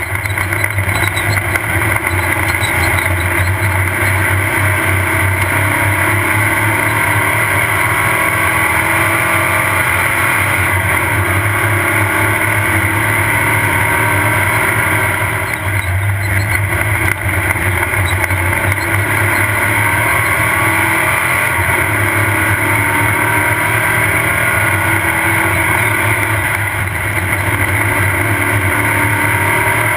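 Off-road race buggy's engine running hard at speed, a continuous loud drone with the engine note wavering. It eases briefly about halfway through and again near the end.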